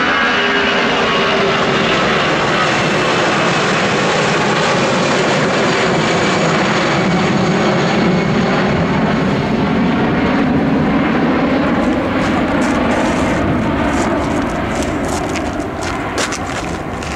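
Four-engined Airbus A340 jet airliner climbing out overhead, its engines a loud, steady rush and whine. The pitch falls at the start as it passes, and the sound fades slightly near the end as it moves away.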